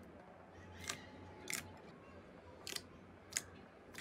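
Thick, glossy slime being pressed and kneaded by fingers in a glass bowl, giving about five short, sharp pops of trapped air, spaced irregularly over a faint hiss.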